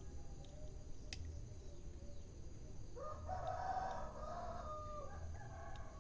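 A rooster crowing once, a call of about two seconds starting halfway through, rising at the start and falling away at the end. Under it runs the low steady rumble of a wood fire, with a single sharp crackle about a second in.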